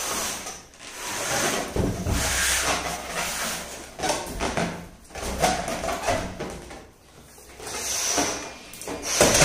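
People blowing into rubber balloons to inflate them: repeated breathy puffs of about a second each, with short pauses for breath between.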